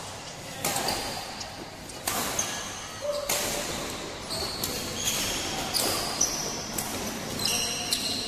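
Badminton rally: rackets striking a shuttlecock in a run of sharp hits, with court shoes squeaking on the mat between them, in a large hall.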